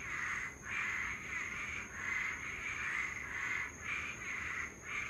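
Night chorus of insects: a rasping buzz that swells and dips about once a second, with a thin, steady, high-pitched tone above it.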